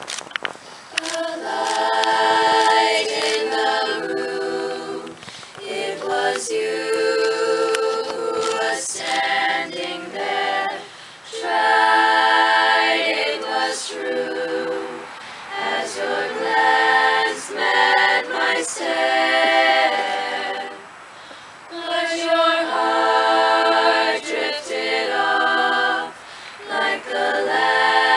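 A cappella choir of teenage girls singing in several voices, starting about a second in, in sung phrases of a few seconds separated by brief pauses.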